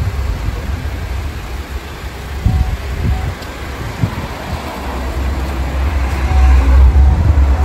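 Low, uneven rumble with street noise, swelling over the last few seconds, and faint voices behind it.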